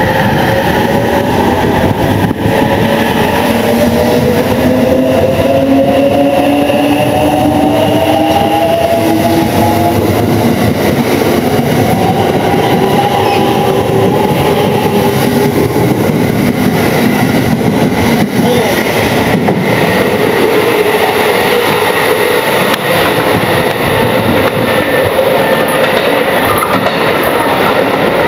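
JR West 683 series 8000-number Shirasagi limited express pulling out of the station: its traction motor whine rises slowly in pitch as it gathers speed, over steady wheel and rail noise.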